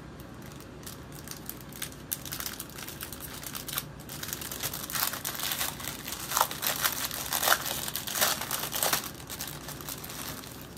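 Small clear plastic bags of diamond-painting drills crinkling as they are handled, in irregular crackles that grow louder about halfway through.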